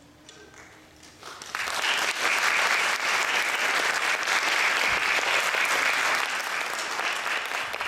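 Audience applause that breaks out about a second in, builds quickly and then holds steady.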